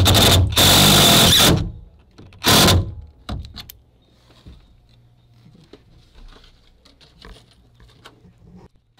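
DeWalt cordless impact driver driving a screw through a wooden ceiling batten into a van's roof frame. It runs in two bursts over the first second and a half and once more briefly about two and a half seconds in, followed by faint clicks and handling.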